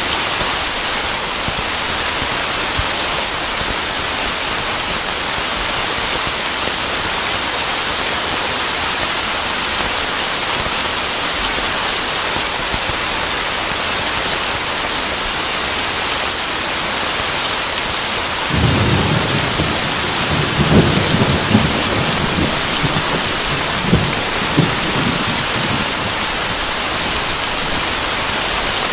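Steady heavy rain falling, with a roll of thunder rumbling in about two-thirds of the way through, cracking sharply a few times before it dies away.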